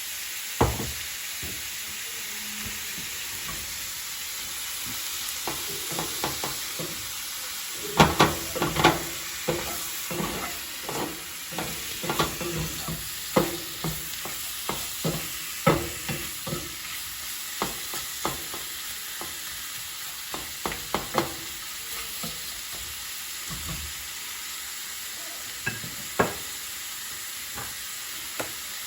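Shrimp frying in olive oil in a skillet with a steady sizzle. A utensil knocks and scrapes against the pan as they are stirred and turned, busiest through the middle stretch.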